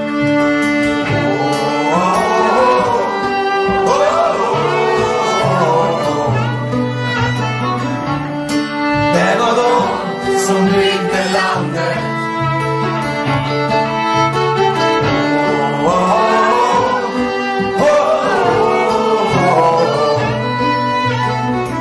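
A live folk-rock band playing an instrumental break: a fiddle carries the gliding melody in repeated phrases over strummed acoustic guitar, a steady bass line and drums.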